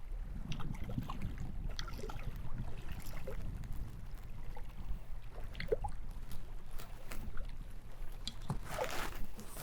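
Water lapping and trickling against a canoe hull, with small scattered splashes and a louder splash near the end.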